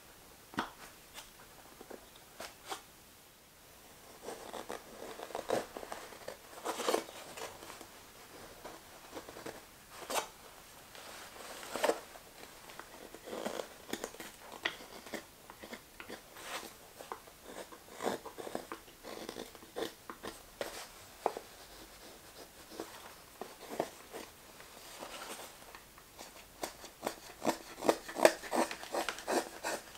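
Carving knife slicing shavings from the handle of a green maple spoon: irregular crisp cuts, a few at a time, then a quicker run of short strokes near the end.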